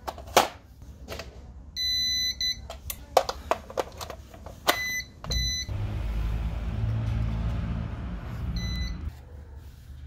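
Electronic beeping from a CyberPower UPS: a long beep about two seconds in, then short single beeps near five seconds and again near nine, among sharp clicks and knocks of plugs and cords being handled. A low rumble runs through the second half.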